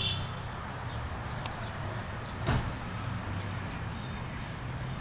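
Steady low background hum with a single sharp knock about two and a half seconds in.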